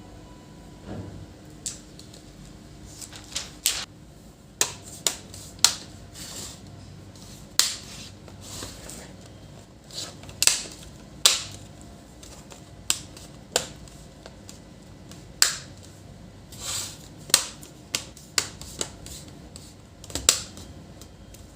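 Irregular sharp clicks and taps from the HP Pavilion G4 laptop being handled and operated, roughly one or two a second, over a faint steady hum.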